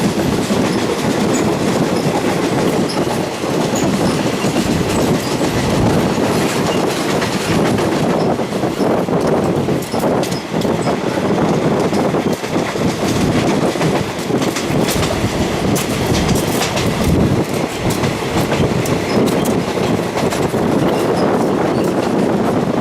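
Train carriage rolling along the rails, heard from inside a non-air-conditioned third-class coach: a steady rumble with wheels clattering over the rail joints, the clicks coming thicker in the second half.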